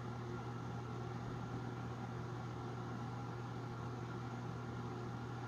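A motor-driven machine humming steadily, with a low drone and a faint higher tone over an even hiss.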